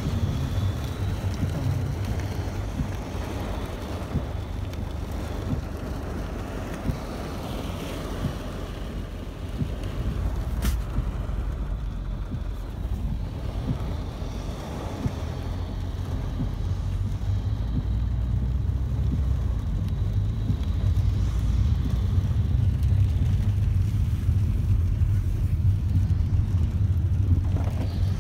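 Intense thunderstorm wind buffeting a moving car, mixed with the car's low road rumble, heard from inside the cabin. It gets louder over the last third.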